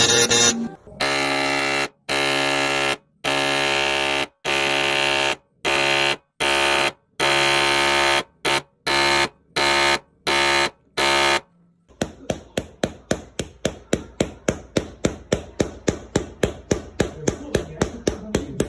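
A buzzer-like pitched tone sounding in about a dozen on-off pulses, the pulses getting shorter and closer together, followed about twelve seconds in by a fast, even run of clicks at roughly five a second.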